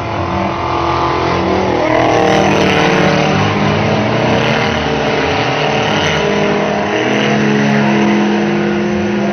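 Several banger racing car engines running and revving as the cars drive round the track, their engine notes overlapping and rising and falling.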